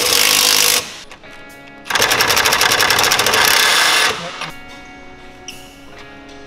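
A power tool rattling rapidly in two loud bursts, the first stopping under a second in and the second lasting about two seconds. Background music plays underneath.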